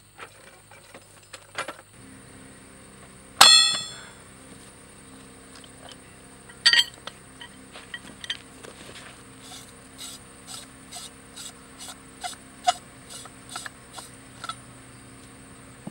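Steel tools and a steel sampler tube clanking as pipe wrenches are worked on the tube: one loud ringing clang about three and a half seconds in, a second sharp clang about seven seconds in, then a run of light regular clicks, about two a second, near the end.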